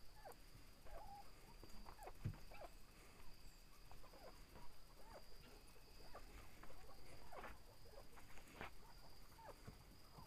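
Chickens clucking softly in short, scattered, faint notes, over a steady faint high-pitched tone.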